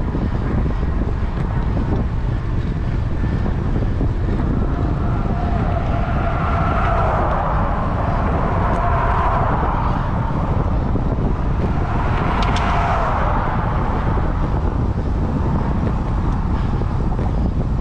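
Wind buffeting the microphone of a moving bicycle, with road traffic going by: one vehicle swells past about six to ten seconds in and another about twelve seconds in.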